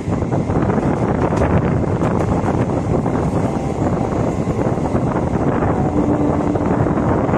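Steady running noise of a MEMU local train at speed: wheels on the rails and the coach body clattering, heard at an open door, with wind buffeting the microphone.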